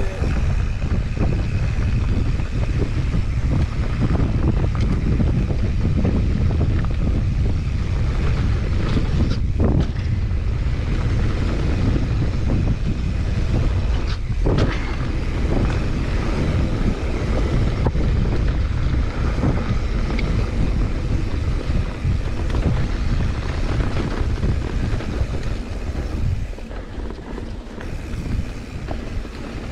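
Mountain bike rolling fast down a dry dirt trail: heavy wind noise on the rider's camera microphone, mixed with the crunch and rattle of tyres and bike over the dirt, easing slightly near the end.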